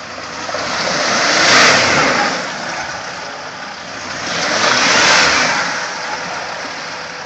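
Land Rover Discovery 4 stuck in mud, its engine revved hard twice, each surge swelling and dying away over a couple of seconds, with the wheels spinning and churning the mud.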